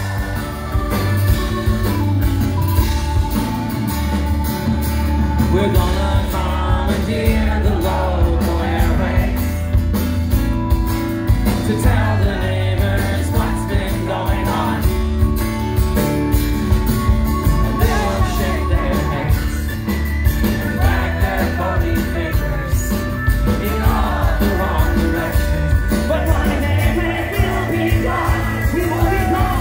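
Rock band playing live, heard from the audience: a male lead voice singing over acoustic guitar, keyboard, bass guitar and drums.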